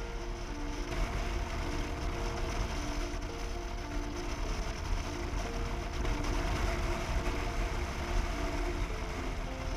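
Motorcycle riding at road speed heard from a handlebar-mounted camera: steady wind and road noise over the engine's low rumble, with a simple melody of background music playing underneath.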